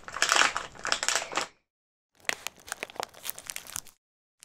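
Crisp packet crinkled and rustled as foley for the crunch of chocolate: two stretches of crackling separated by a dead-silent gap, then a short burst of crackle near the end.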